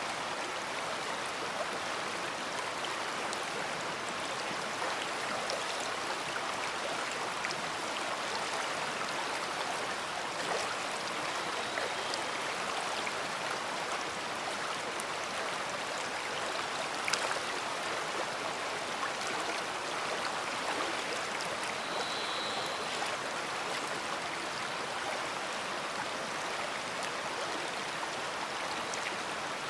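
A big river flowing: a steady, unbroken rush of moving water, with one sharp tick a little past halfway.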